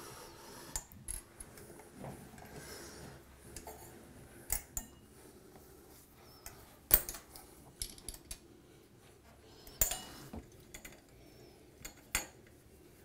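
Light metal clicks and clinks from an Allen key and set screws against the chrome mounting flanges of a grab bar as the set screws are tightened by hand; scattered single clicks, the sharpest about seven seconds in.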